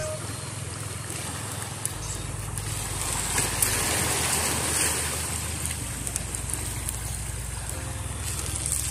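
Small waves washing onto a rocky, sandy seashore: a steady rush of surf with a low rumble underneath.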